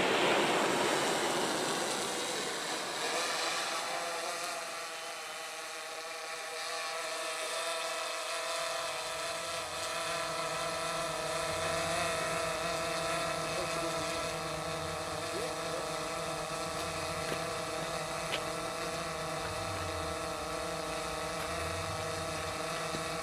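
The last crackle of fireworks fades over the first two seconds or so, then an engine runs steadily with a low pulsing hum.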